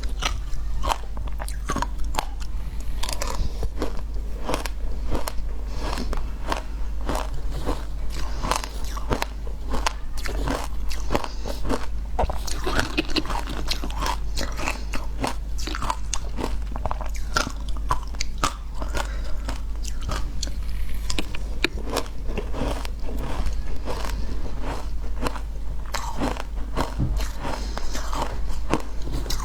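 A person biting and chewing frozen ice close to the microphone: dense, continuous crunching and crackling.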